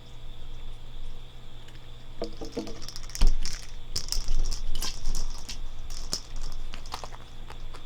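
A ball clicking and knocking against a small plastic container as a cat paws at it: irregular clatter with the loudest knock a little after three seconds in.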